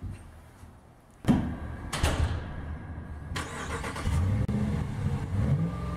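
Pickup truck engine starting: a sudden loud burst as it catches, then running, its pitch rising and falling as it is revved.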